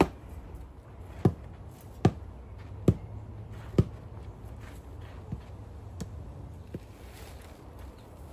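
Hard knocks of concrete blocks being handled and set down on a paved patio. Five sharp knocks come about a second apart, then three fainter ones.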